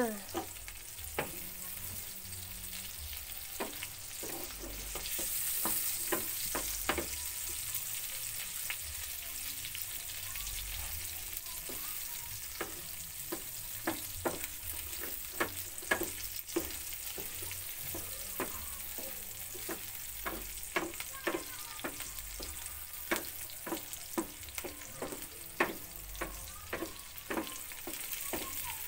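Red chilies, shallots and garlic sizzling in hot oil in a non-stick frying pan, with a spatula knocking and scraping against the pan every second or so as they are stirred. These are the raw sambal ingredients being fried until fragrant.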